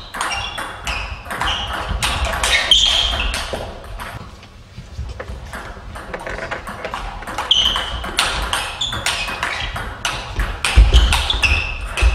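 Table tennis rally: a celluloid ball clicking off rubber bats and the table in quick succession, with a short lull near the middle. Short squeaks of sports shoes on the hall floor come between the hits.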